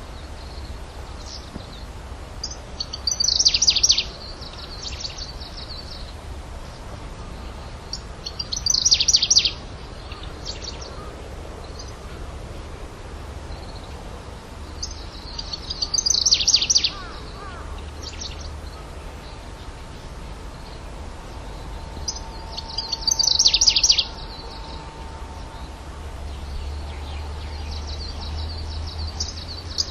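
A grasshopper warbler (Locustella) singing short, high phrases of rapid notes, repeated about every six or seven seconds.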